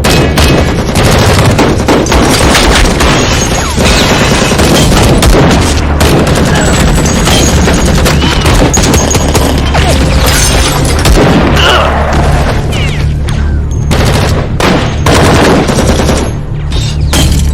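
Film gunfight sound: dense, sustained volleys of automatic gunfire with heavy booms, mixed over a music score with a steady low bass.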